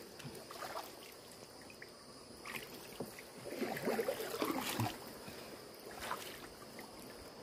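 Water splashing and dripping as a wet gill net is hauled out of flood water into a small boat. The splashing is heaviest for a second or so a little after the halfway point.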